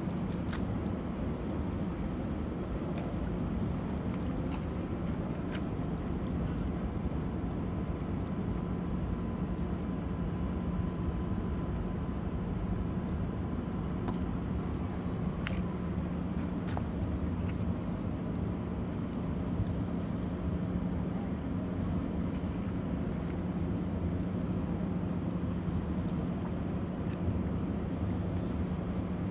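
Steady low hum of a large ship's engines carrying across the water, with light wind on the microphone.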